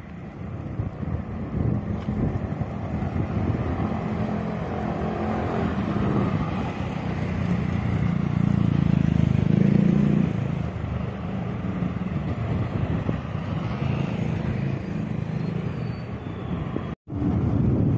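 Street traffic: a motor scooter passes close by, growing louder to a peak about eight to ten seconds in and then fading. Another vehicle is heard coming near the end.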